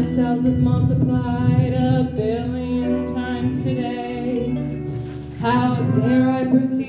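Music with singing voices: wavering, gliding vocal lines over a steady held low note, which drops out briefly about five seconds in.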